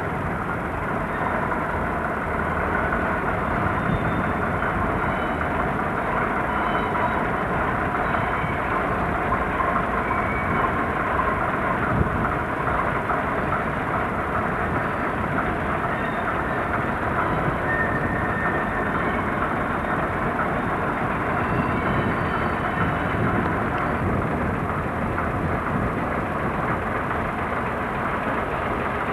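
Diesel coach engines running steadily, a continuous rumble with a faint whine above it.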